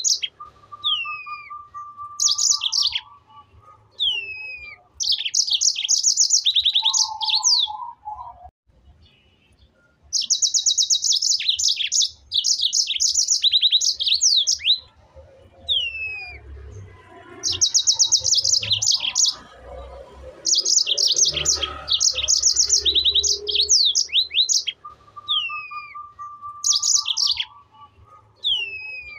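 A bird singing: repeated bursts of rapid, very high chirping trills, with short whistled notes sliding downward in pitch between them.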